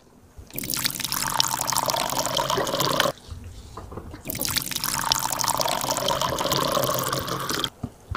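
Water poured from a kettle into cups of instant ramen, twice: a pour of about two and a half seconds into one cup, a pause of about a second, then a pour of about three seconds into a second cup.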